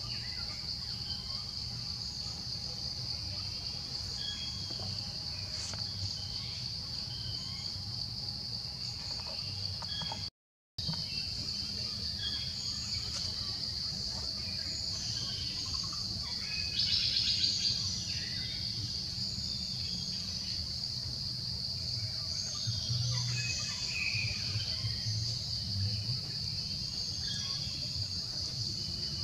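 Outdoor ambience: a steady high-pitched drone of insects in the trees, with scattered short bird chirps and a low background hum. A louder buzzy call stands out for about a second past the middle, and the sound cuts out for a moment about ten seconds in.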